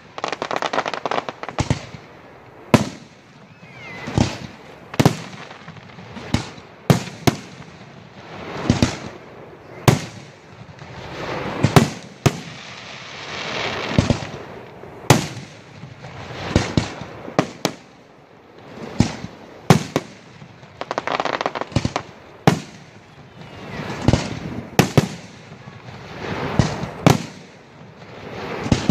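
Aerial fireworks display: shells bursting one after another, a sharp bang every second or two, with noisy stretches that swell up between the bangs.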